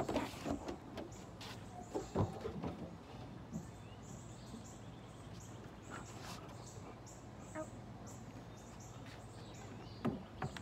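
Short knocks of a dog's paws and a bouncing ball on a wooden deck, near the start and again near the end, over a steady outdoor background with faint birds chirping.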